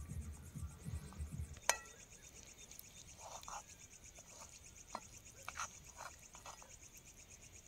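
Night insects chirping in a steady, high, fast-pulsing chorus. A sharp click comes a little under two seconds in, and a few faint knocks of handling come later.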